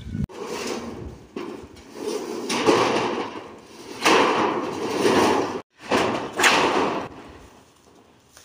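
Blue profiled metal roofing sheet being slid and handled on a steel shed frame: four drawn-out rattling, sliding swells of sheet metal, each about a second long.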